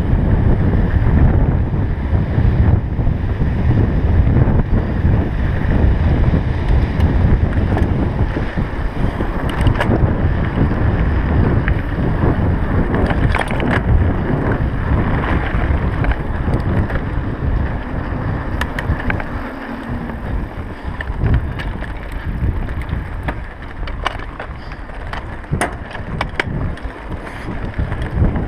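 Wind buffeting the action camera's microphone over the steady crunch of mountain-bike tyres rolling on a dirt and gravel track, with scattered short clicks and rattles from the bike on bumps. It eases a little past the middle.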